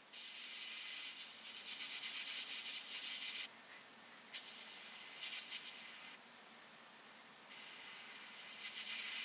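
Airbrush spraying in four bursts of a few seconds each, the hiss of air and paint switching sharply on and off as the trigger is worked.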